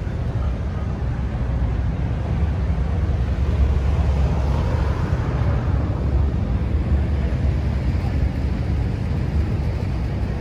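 Steady low rumble of outdoor background noise, swelling slightly about halfway through, with faint voices in the background.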